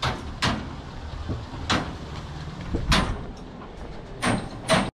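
Footsteps on a stone-paved lane: a handful of irregular steps over a low, steady rumble, cutting off abruptly just before the end.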